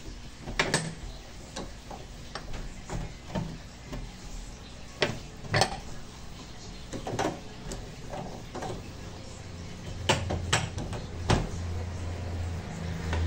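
Irregular light metallic clicks and knocks from a stainless-steel gas hob being wiped with a dry napkin, the burner parts and control knobs knocking as the hand works around them. A low steady hum comes in near the end.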